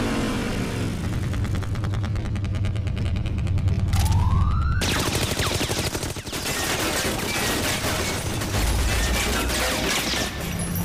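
Rapid machine-gun fire as sound effects for an animated battle, with a short rising whistle about four seconds in and a low rumble underneath.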